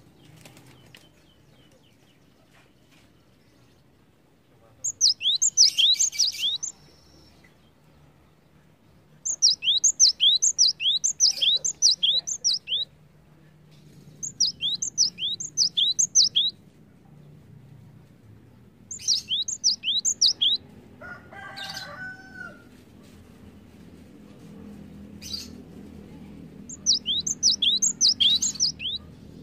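Cinereous tit (gelatik batu) singing: five bursts of quick, high, repeated downslurred notes, each burst lasting one and a half to three and a half seconds, with pauses between them. A brief lower call sounds once, a little after the middle.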